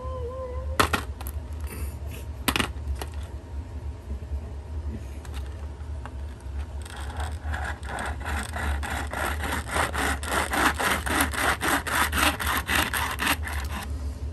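A kitchen knife blade sawing back and forth across a quail eggshell to score it open: a fast scratchy rasping at about four strokes a second, starting about halfway through. Two sharp clicks come in the first few seconds.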